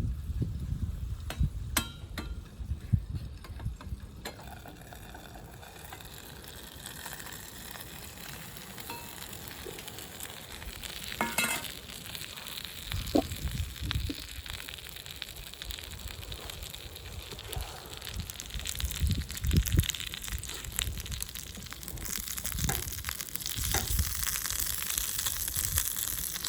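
Food sizzling as it fries, the hiss building after the first few seconds, with occasional low knocks.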